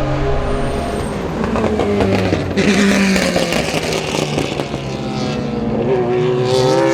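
Ferrari F430 GT2 race car's flat-plane V8 at racing speed. The engine note drops about two and a half seconds in, a burst of rushing noise follows, and the note climbs again under acceleration near the end.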